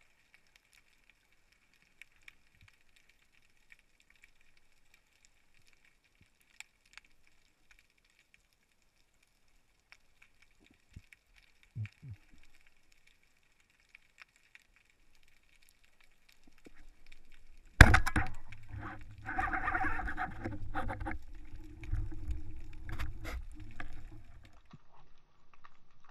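Underwater near silence with scattered faint clicks, then, about 18 seconds in, a sharp knock followed by several seconds of rushing, rumbling water noise as a spearfisher's camera moves through the water.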